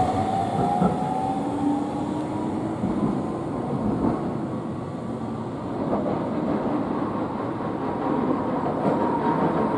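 Iyotetsu streetcars on the street track: a tram's electric motor whine, rising in pitch, fades over the first two seconds as the tram pulls away, above a steady rolling rumble.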